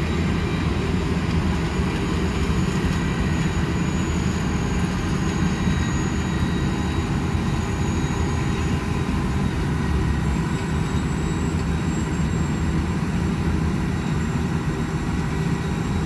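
Tracked combine harvester cutting crop: a steady mechanical drone with a faint high whine over it.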